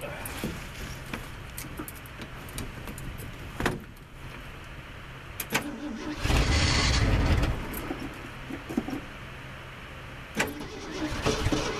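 Cold start of a 1974 Ford F-250's 390 V8: a loud burst of engine noise about six seconds in, then more engine sound building near the end as it is started again, over a steady low hum.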